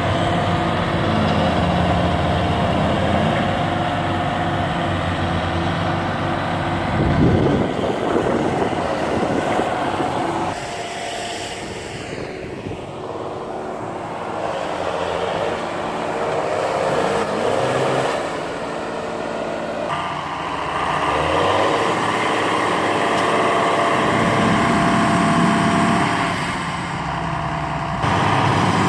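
Diesel engines of large John Deere farm tractors running hard under heavy load, in several clips cut together. The engine note changes abruptly at each cut.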